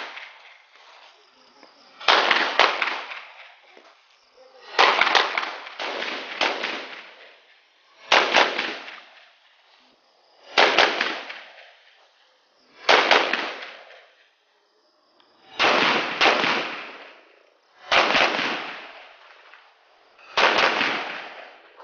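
Gunshots from a pistol and an AR-style carbine fired in slow aimed strings, roughly one every two to three seconds with a few quick pairs, each shot ringing out for about a second.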